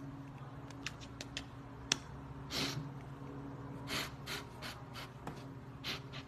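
A few short, sharp breaths, starting about two and a half seconds in, over a steady low hum, with scattered light clicks before them.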